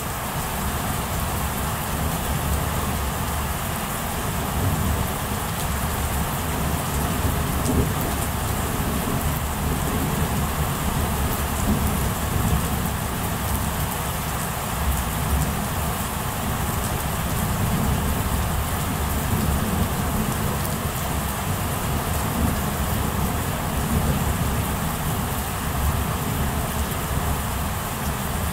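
Steady rain during a thunderstorm, under a low rumble of thunder that swells and fades, picked up by a camera microphone.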